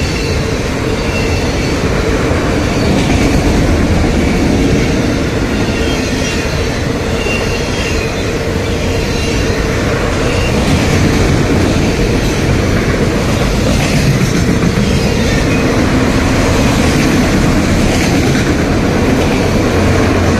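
Long freight train of autorack cars rolling past close by: steady wheel-on-rail noise and rattling of the cars.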